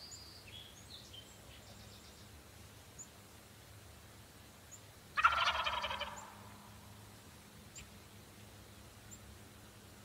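A wild turkey gobbler gobbles once, about five seconds in: a rapid rattling call lasting about a second that trails off. Faint songbird chirps come before it.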